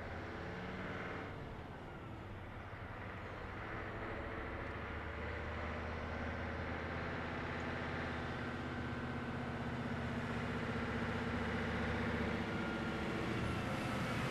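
A motor vehicle's engine running as it approaches along the road, its hum and road noise growing slowly louder.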